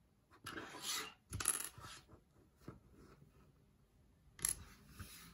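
Small plastic building-brick pieces clattering as they are rummaged through, in two bursts within the first two seconds, then a single sharp click near the end as a piece is set down or snapped.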